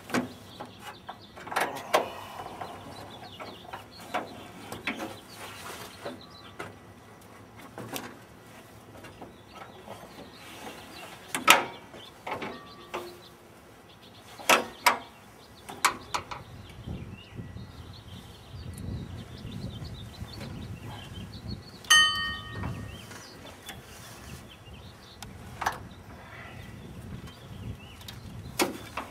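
Metal hand tools and engine parts clinking and knocking at uneven intervals during work on a Ford 302 V8's top end. About two thirds of the way through, one strike rings out with a clear metallic tone.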